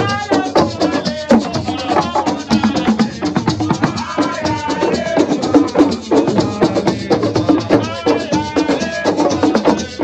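A man singing through a microphone and loudspeaker over fast, steady percussion of drums and rattles or shakers.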